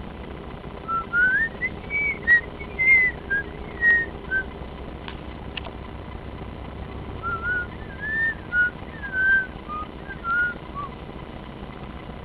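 A person whistling a short tune in two phrases of sliding single notes, over a low steady hum.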